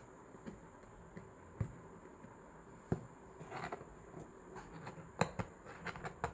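Scattered light clicks and knocks, with a short rustle about three and a half seconds in: hands handling a cardboard parcel.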